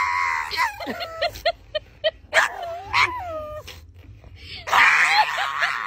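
A puppy screaming and yelping in protest at having its nails clipped: a shrill, wavering cry at the start, short yelps about two and three seconds in, and another long scream near the end.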